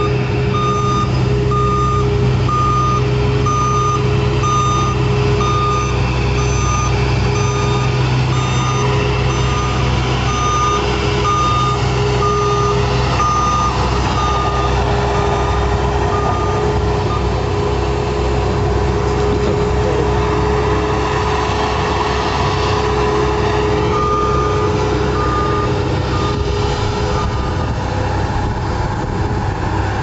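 Bobcat skid steer's diesel engine running steadily while its hydraulic hopper broom sweeps loose asphalt millings. A reversing alarm beeps in an even series through the first half, stops, and beeps again briefly near the end.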